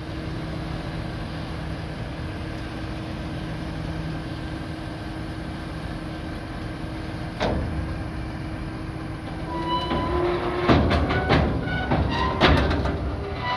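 Tractor engine running steadily with a Joskin Tornado M1012V manure spreader hitched, and a single metal clank about halfway. In the last few seconds the engine pitch rises a little and several heavy metal clanks come with a high squealing whine.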